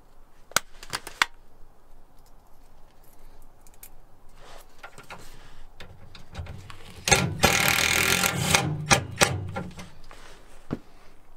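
A cordless drill runs in one loud burst of about a second and a half into the steel bracket of a van sidestep, with a couple of clicks just after. Near the start, a few sharp clicks of small screws being picked from a plastic bin.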